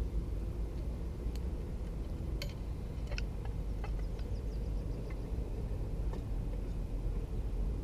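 Wood campfire crackling, with sparse sharp pops and a quick run of small crackles about four seconds in, over a steady low rumble.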